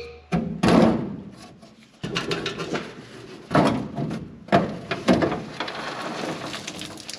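Sprayer's engine underside cover being worked loose and pulled away by hand: a run of scraping and rattling noises broken by several louder knocks.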